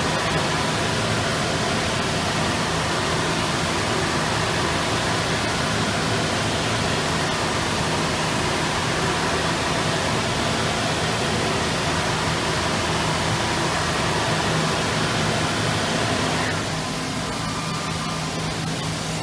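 Intorex CNC wood lathe running and machining a square tapered timber leg: a steady mechanical hiss with a low hum, dropping slightly about three seconds before the end.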